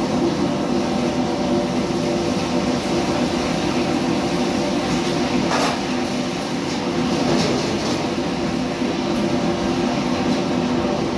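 Steady, loud running noise of a commercial kitchen wok station, its extractor hood fan and gas wok burner going together. A metal ladle scrapes and knocks in the wok briefly about five and a half seconds in and again around seven seconds in.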